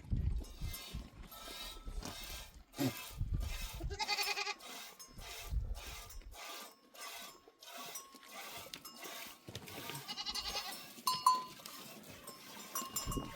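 A flock bleating, with animal neck bells clinking and clanking throughout. There are louder calls about four seconds in and again near ten seconds.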